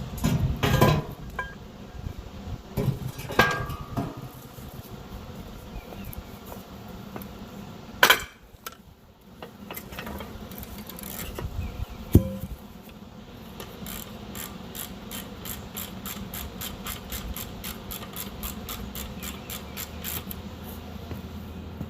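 Metal tools and parts knocking and clanking a few times, then a steady, fast clicking of a hand ratchet wrench, about five clicks a second, through the second half.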